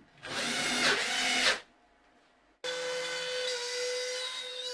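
Cordless drill driving a screw into a plywood sheet for just over a second. About a second later a CNC machine's Makita trim router starts up suddenly and runs at a steady whine.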